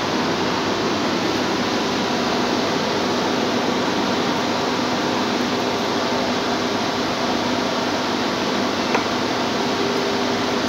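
Steady rushing noise of a running fan or blower, with a faint hum under it; one small tick near the end.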